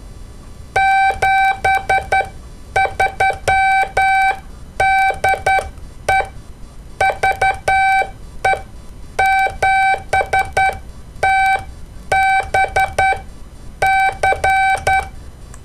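Morse code sent as a single-pitched beeping tone, keyed in short and long elements (dits and dahs) grouped into letters with gaps between them, starting about a second in.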